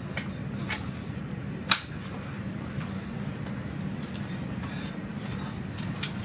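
Running noise of a regional train heard from inside the carriage: a steady low rumble with a few sharp clicks, one loud clack about two seconds in.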